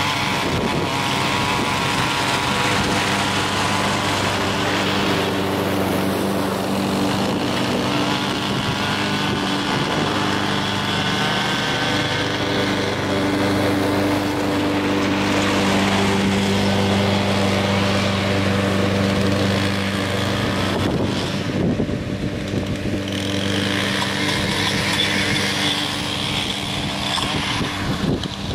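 Gas push mower engine running steadily under load while cutting grass, together with the higher whine of a string trimmer edging alongside.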